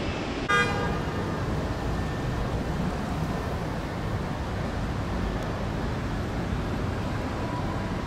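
A single short car horn toot about half a second in, over a steady low rumble of traffic.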